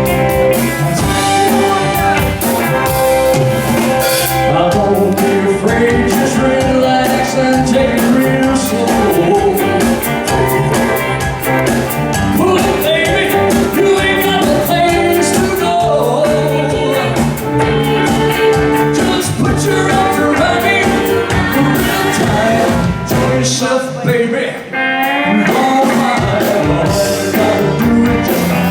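Live rock and roll band playing: drums keeping a steady beat under guitar and a singer. The bass drops out briefly about three-quarters of the way through.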